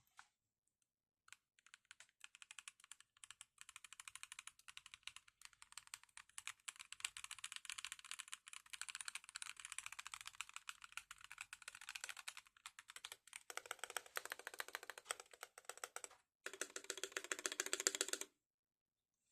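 Typing on an Asus ROG Azoth 75% mechanical keyboard: fast runs of key clacks starting about a second in, with a brief pause about two-thirds of the way through and a last burst near the end.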